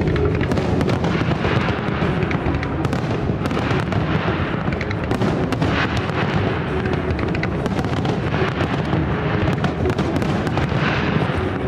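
Festival fireworks display: a dense, continuous crackle of many small bursts, with no single big bang standing out.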